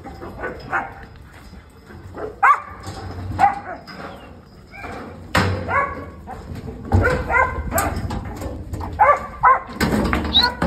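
Working kelpie barking at sheep in the yards, a string of short barks beginning about two seconds in: a yard dog using its bark to move the mob.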